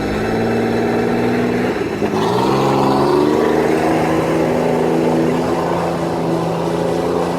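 Engine of an off-road 4x4 running under load. Its pitch dips about two seconds in, rises again and then holds steady.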